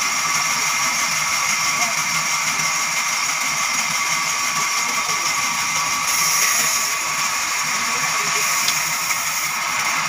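A large sawmill band saw running steadily with a high whine, its blade ripping lengthwise through a jackfruit log. The sound grows brighter and louder for about a second around six seconds in.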